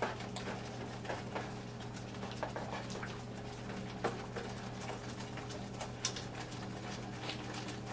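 Thick brown flour gravy coming back to a boil in a large skillet: faint, irregular pops and bubbles, with light clicks of a spatula in the pan, over a steady low hum.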